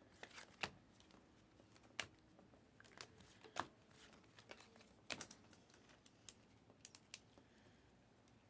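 Trading cards and foil packs being handled: faint crinkling with a few short sharp clicks, about one every second or two.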